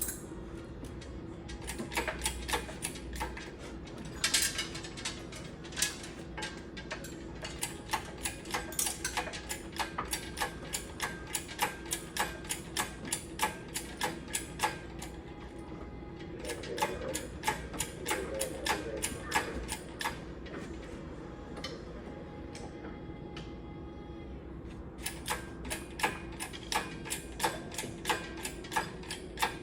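Ratchet mechanism clicking in a steady rhythm, about two to three clicks a second, with a couple of short pauses, over a steady low hum.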